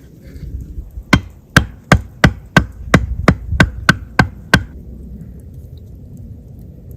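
A tool striking wood in a quick series of about eleven sharp blows, roughly three a second, each with a short ring. The blows start about a second in and stop around four and a half seconds in.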